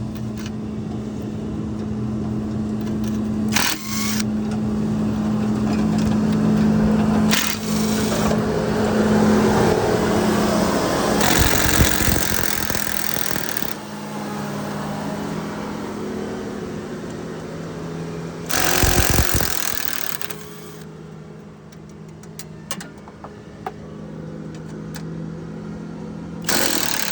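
Skil brushless impact driver working on bolts, its rapid hammering coming in long runs with short stops and a few sharp clicks between them.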